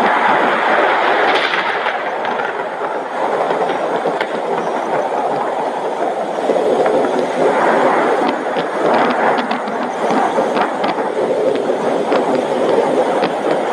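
Heavy rain falling steadily, with a few sharp ticks from drops striking something about halfway through.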